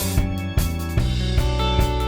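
Background music: a guitar-and-drums instrumental with a steady beat.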